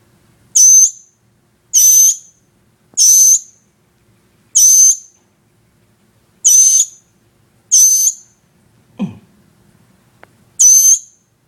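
Baby bird chick calling loudly: seven short, shrill, hissy screeches with a whistled note, one every second or two.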